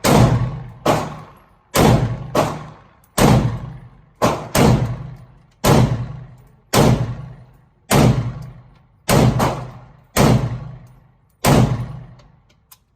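Semi-automatic gunfire: about fourteen single shots at a steady pace of roughly one a second, a few in quick pairs. Each is a sharp report followed by a fading echo.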